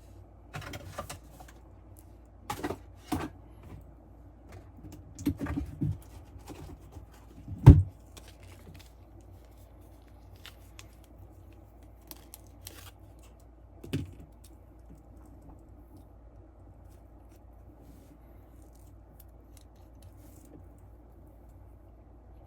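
Small tools and a bench vise being handled: scattered clicks, taps and knocks, the loudest a single sharp knock about eight seconds in and one more near fourteen seconds.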